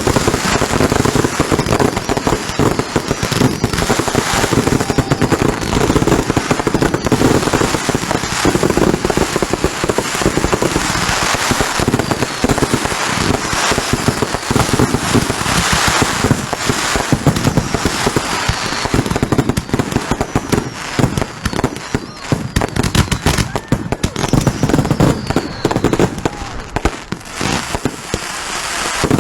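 Consumer fireworks going off in a dense, continuous barrage of bangs and crackling, with a few descending whistles.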